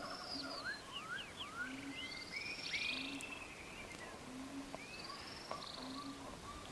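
Birds chirping and whistling in quick rising and falling calls over a faint hiss, with a short low note repeating about once every second or so.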